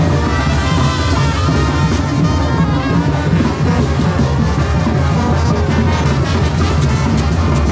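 A marching brass band with tubas and drums playing a continuous, lively tune.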